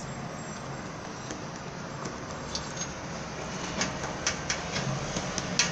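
White glue and homemade shampoo foam being stirred in a container, the utensil making light, irregular clicks and scrapes against its sides that come more often in the second half as the mixture turns creamy.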